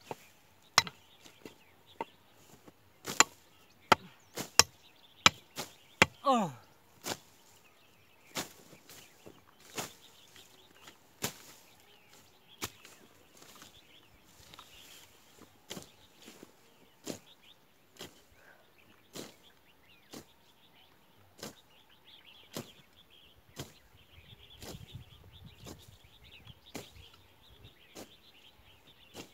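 Hoes chopping into grassy ground as a hillside field is cleared of grass and scrub: repeated sharp strikes about one a second, louder in the first few seconds and softer later.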